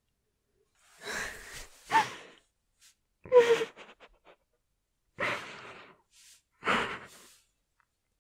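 A woman breathing in audible gasps and sighs, about five breaths with short silences between them; the loudest, near the middle, carries a brief voiced catch.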